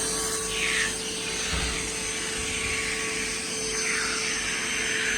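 Kärcher OC3 portable low-pressure cleaner spraying water onto an air-conditioning unit's coil to wash it. The hiss of the spray rises and falls in pitch as the jet sweeps back and forth across the fins.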